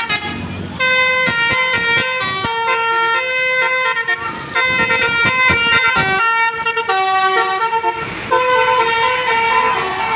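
Telolet horn, the multi-tone musical horn of Indonesian buses, playing a melody of stepped notes in several phrases with brief breaks between them.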